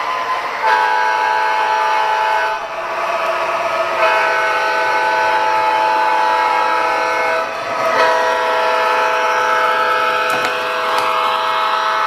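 Multi-chime diesel horn sound from an MTH O scale GE ES44AC model locomotive's onboard sound system, blown in three long blasts as it approaches a grade crossing.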